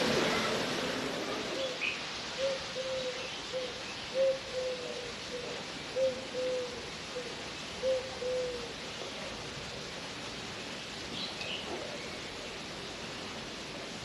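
A dove cooing: soft, low phrases of two or three notes, repeated about every two seconds, stopping about eight seconds in.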